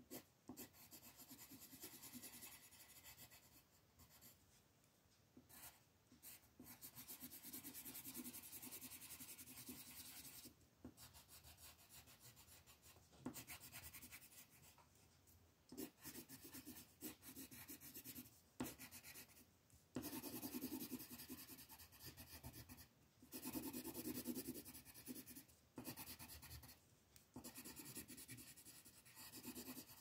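Coloured pencil scratching across paper in quick back-and-forth shading strokes, in runs of a few seconds with short pauses between.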